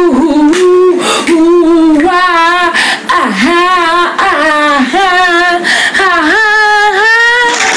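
A woman singing a worship song loudly and without accompaniment, in a run of long held notes with a wide vibrato and short breaks between them.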